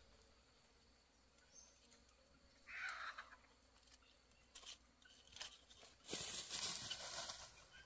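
Quiet forest with a brief bird call about three seconds in, a few light snaps, then about a second and a half of crunching and rustling in dry fallen leaves underfoot near the end.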